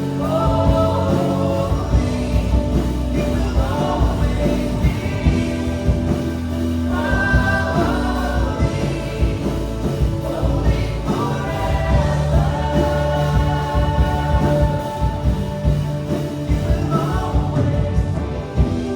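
Live church worship music: a band with drums and bass, and a group of singers, performing a contemporary worship song.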